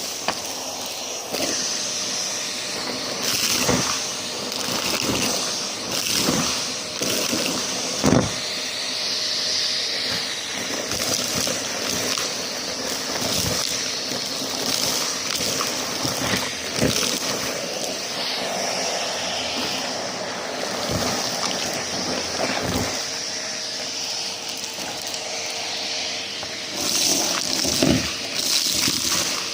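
Numatic James tub vacuum cleaner running close to a microphone mounted on it: a steady rushing hiss of suction, broken by frequent clicks and knocks.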